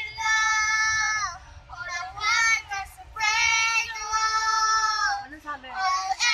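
Girls singing a string of long, very high held notes without words, with short breaks between them. A faint low hum runs underneath.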